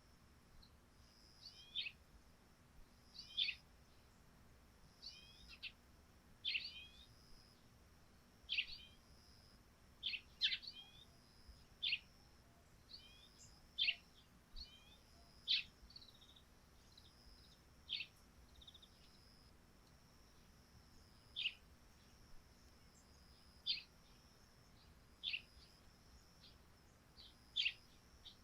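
Eurasian tree sparrows chirping: short, sharp single chirps, sometimes in quick pairs, every second or two, over a faint steady high-pitched tone.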